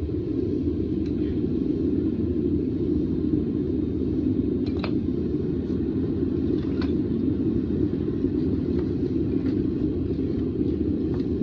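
Propane-fired metal-melting furnace running steadily: an even, low rumble from the burner as it heats toward melting temperature, with a few faint ticks over it.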